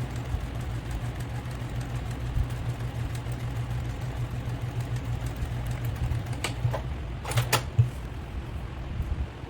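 Sewing machine running steadily, stitching a line to divide a pocket into sections, with a few sharp clicks about two thirds of the way through.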